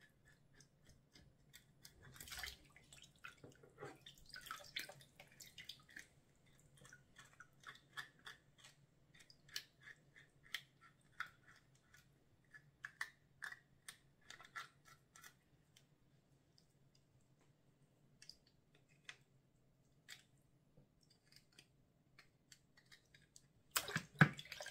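Kitchen knife scraping leftover scales off a sea bass: a run of quick, short scrapes that thin out to a few after about fifteen seconds. Near the end, a louder splash as hands go into the bowl of water holding the fish.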